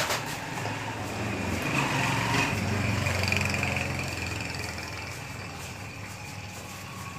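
A motor vehicle's engine passing by, growing louder about two seconds in and fading away over the following seconds.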